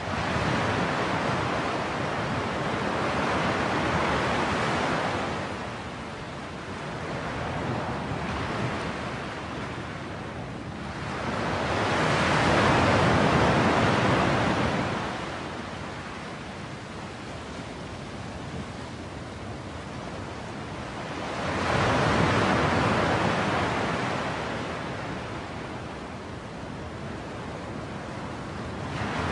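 Ocean surf: a rushing wash of waves that swells and fades in three slow surges about nine seconds apart.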